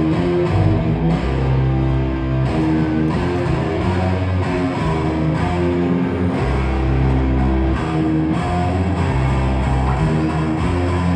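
A live band playing loud amplified guitar-led rock music, with no singing.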